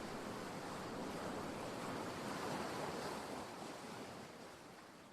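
Sea waves washing ashore, with some wind, as a steady rush of noise that fades away over the last second or two.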